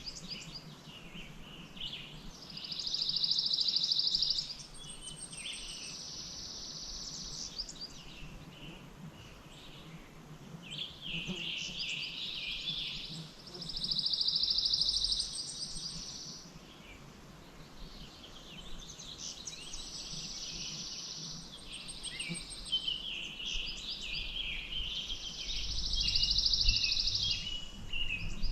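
Songbirds singing and chirping. One bird repeats a fast, buzzy trill lasting about a second and a half, roughly every eleven seconds, three times in all, over softer chirping from other birds.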